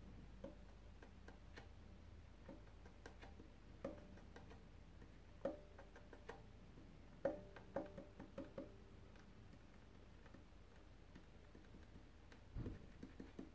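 Faint, scattered taps of left-hand fingertips on the shoulder of a violin's wooden body, some taps ringing briefly in the body. The taps come irregularly and are a little louder and closer together in the middle.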